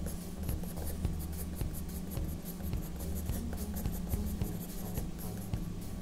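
Graphite pencil scratching on drawing paper in many quick short strokes, sketching hair, over a low steady hum.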